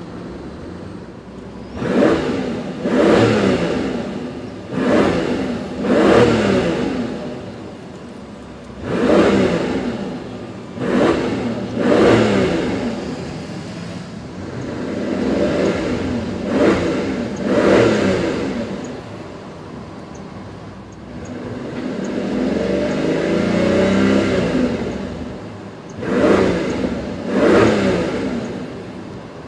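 2015 Mercedes-Benz S65 AMG's twin-turbo V12 free-revving in Park, heard from inside the cabin. It idles between a series of quick throttle blips, each rising sharply and falling back to idle. In the second half there is one slower, longer climb held for a few seconds, then two more blips.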